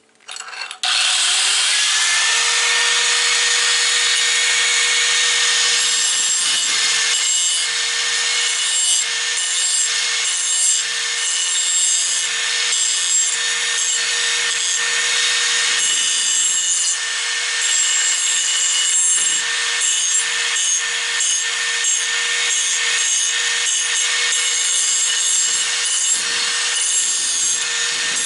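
Electric angle grinder switched on about a second in, its motor whine rising as it spins up, then running steadily. Its disc grinds a chamfer along the edges of a sheet-metal bracket, and the grinding noise comes and goes as the metal is pressed on and eased off.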